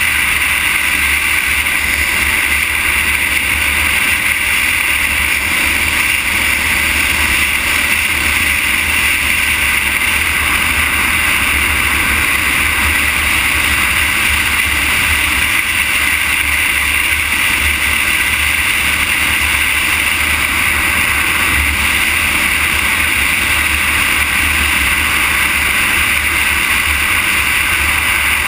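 Steady wind rush on the microphone of a camera moving along an asphalt road, with a continuous low rumble underneath and an even hiss.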